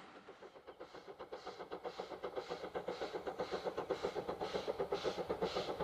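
Steam locomotive exhaust beat, a regular chuffing of about three beats a second that grows steadily louder as the engine draws nearer.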